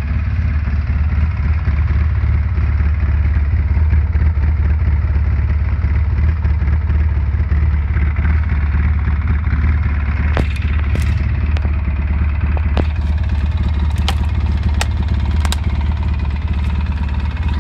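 Polaris 800 ATV engine running steadily with an even, deep note. A few sharp clicks sound over it in the second half.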